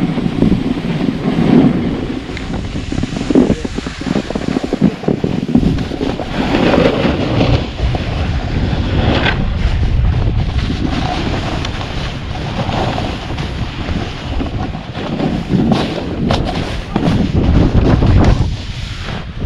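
Wind buffeting a GoPro Hero7 Black's microphone during a snowboard descent, loud and uneven, mixed with the board's edge scraping and chattering over packed and chopped snow.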